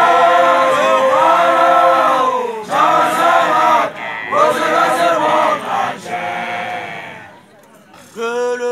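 A group of male voices chanting a song in short phrases of a second or two, dropping away briefly near the end before a long held note.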